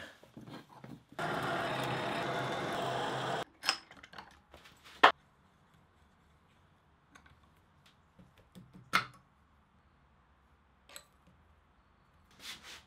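Workshop handling sounds: a steady whirring noise for about two seconds that cuts off suddenly, then a handful of sharp clicks and metal taps as small steel and brass parts and a hex key are handled on a bench vise.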